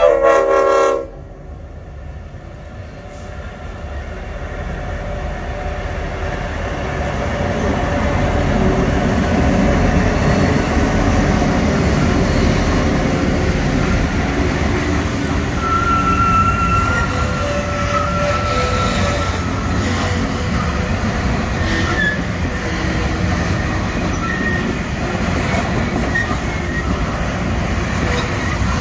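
SSR grain train: the locomotive's horn sounds one blast of about a second, then the train draws near and its grain hopper wagons roll steadily past, with brief wheel squeals on the curve.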